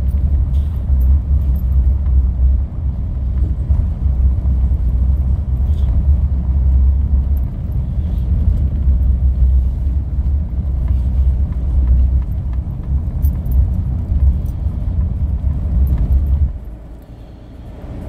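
Car cabin road noise: a steady low rumble from the tyres running over a cobblestone street. It drops sharply about a second and a half before the end.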